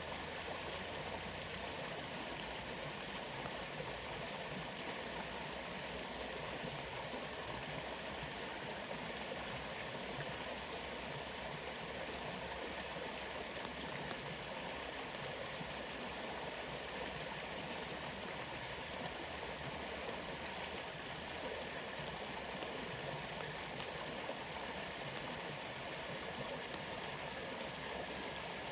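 Waterfall water rushing in a steady, unbroken flow.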